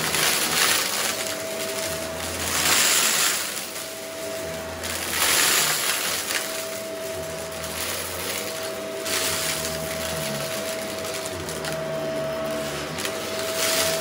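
Shark vacuum cleaner running steadily with a constant motor whine, its brushroll working a shag rug. Several times the sound swells into a crackling rush as small rocks are sucked up and rattle through the wand.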